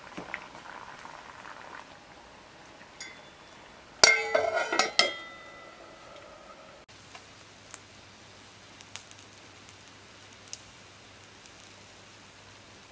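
A metal lid set onto a cast-iron skillet about four seconds in: a quick run of loud clanks with a short metallic ring. Before it, the oil in the pan bubbles faintly under the seafood; after a sudden cut, only a low steady hum with a few faint ticks.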